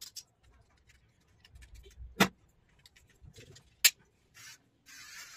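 Sharp plastic clicks and knocks as a Philips electric hair trimmer is handled and tapped against a plastic basin, two knocks standing out. Near the end the trimmer is switched on and runs with a steady high buzz.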